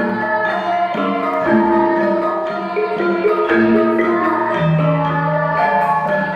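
Javanese gamelan ensemble playing a lancaran: metallophones ring out a melody of held notes over kendang hand-drum strokes.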